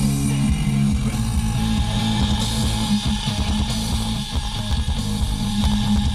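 Rock music with electric guitar playing from an FM station through a 1992 Chevrolet Cavalier's factory Delco AM/FM cassette radio. The sound gets brighter about two seconds in.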